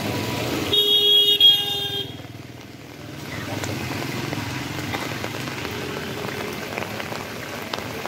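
A vehicle horn sounds once for about a second, starting just under a second in. Behind it runs the steady hiss of traffic and tyres on a rain-wet road.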